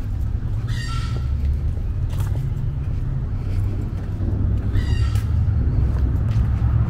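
Steady low rumble of city street traffic, with two short high animal calls, one about a second in and one about five seconds in.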